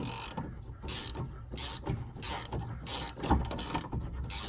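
18mm ratcheting wrench being swung back and forth on a sway bar end link nut, its pawl clicking on each stroke in a steady rhythm of about one stroke every two-thirds of a second.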